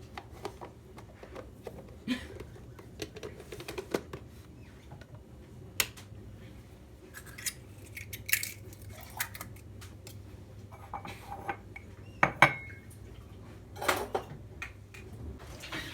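Scattered light clinks and knocks of household objects being handled, like dishes and cutlery, with the loudest knocks and a short bright ring about twelve seconds in, over a low steady hum.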